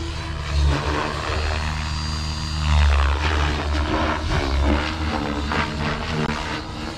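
Blade Fusion 550 electric R/C helicopter in flight: its brushless motor, main rotor and tail rotor buzz and whir steadily. The rotor note rises and falls in pitch as the helicopter manoeuvres.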